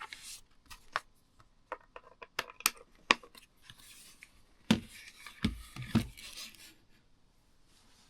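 Handling of a Stream Deck + XL controller and its packaging: a run of sharp clicks and light knocks, a stretch of scraping and rubbing, then a few heavier thumps about five to six seconds in as it is set down and moved about.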